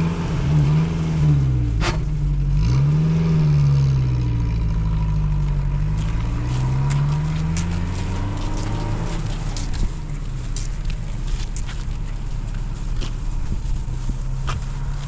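Old Paykan sedan's engine pulling away, its pitch rising and dropping repeatedly as it revs up through the gears, then fading after about nine seconds. Faint footsteps can be heard in the later part.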